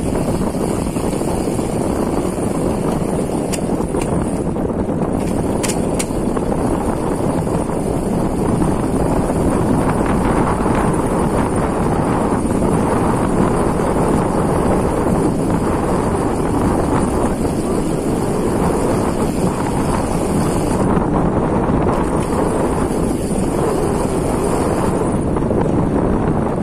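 Wind buffeting the microphone of an electric bike in motion, a steady rushing noise with tyre and drive rumble underneath. A faint high whine runs through it and drops out briefly twice near the end.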